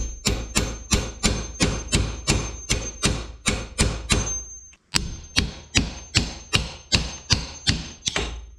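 Hammer striking a steel punch to drive a stuck pedal shaft out of a 1968 Volkswagen Beetle pedal cluster held in a vise: steady blows about three a second, with a short break about halfway, and a thin high metallic ring that carries between strikes.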